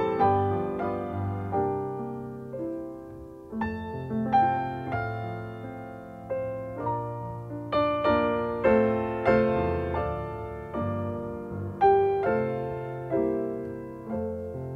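Slow solo piano music: notes and chords struck about once or twice a second and left to fade.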